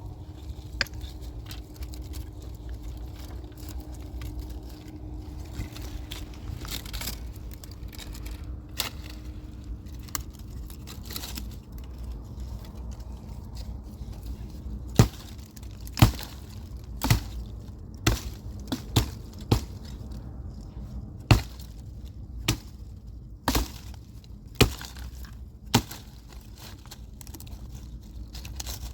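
Firewood being broken up: a string of sharp wooden cracks and knocks at irregular intervals, starting about halfway in, over a low steady background.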